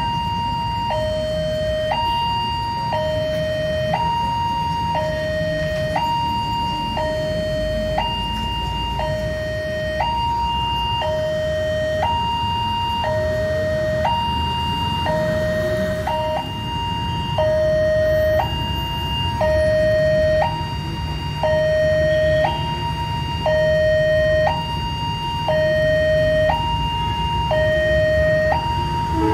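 Railway level-crossing warning alarm sounding: an electronic two-tone signal that switches back and forth between a higher and a lower tone in a steady rhythm, warning of an approaching train. Under it, motorcycle engines idle as the waiting traffic builds up.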